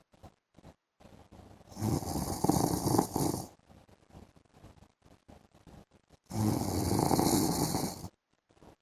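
A man snoring in his sleep: two long snores, each nearly two seconds, about four and a half seconds apart, with quiet between them.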